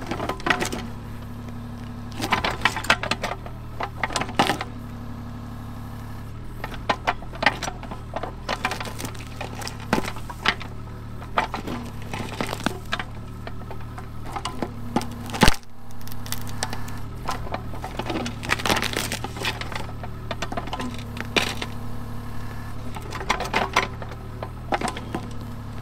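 Mini excavator engine running steadily while the bucket tears stumps and roots out of the ground, with repeated cracking and snapping of wood and one loud crack about halfway through.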